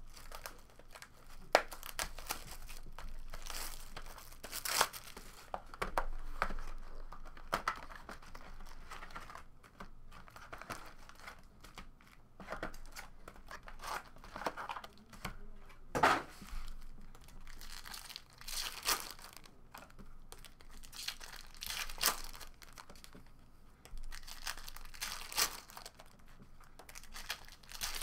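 Foil trading-card packs and plastic wrapping crinkling and tearing as they are handled and pulled from a cardboard box, in irregular bursts with a few sharp clicks.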